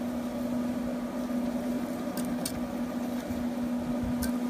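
Wire balloon whisk working in a stainless steel saucepan, giving a few light ticks of wire against metal, over a steady low hum.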